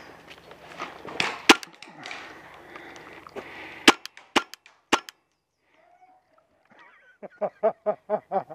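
Paintball marker firing single shots: four sharp cracks, the last three close together about half a second apart, over rustling movement. Near the end a quick rhythmic run of short pulses starts.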